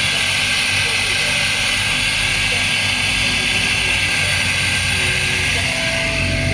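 Suzuki Swift Gen 1 engine idling steadily at a raised idle, with the engine-control fault cleared after a VVT solenoid replacement. Only the high idle remains.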